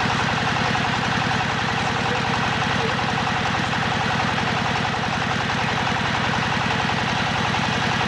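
The engine powering a hydraulic water-well drilling rig runs steadily, with a rapid, even low pulse.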